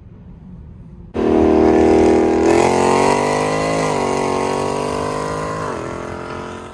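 Supercharged Hemi V8 of a modified Dodge Charger Hellcat Redeye at full throttle. It starts suddenly about a second in, climbs in pitch and dips back a few times, then fades near the end.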